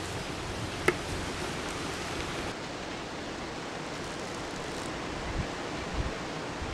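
Steady hiss of outdoor background noise, with one sharp click about a second in.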